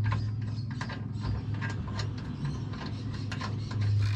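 Small metallic clicks and rattles as the stainless drum anchor winch is handled and fitted back onto its deck mount, over a steady low hum.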